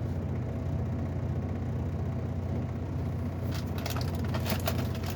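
A steady low mechanical hum. A run of clicks and crackles starts about three and a half seconds in.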